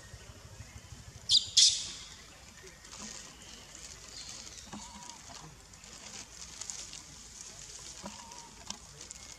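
Two sharp, shrill animal calls in quick succession about a second and a half in, then a couple of faint short whistle-like calls, over a steady high hiss of outdoor ambience.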